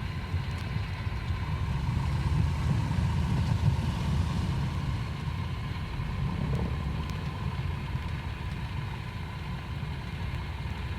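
An engine running steadily, a low rumble with no clear rise or fall.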